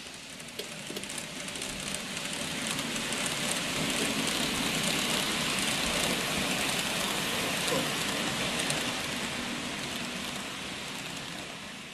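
N-gauge model trains, a freight train and a 165 series EMU, running past on the layout track: a dense rolling rattle of wheels and motors that grows louder as they pass close and fades near the end.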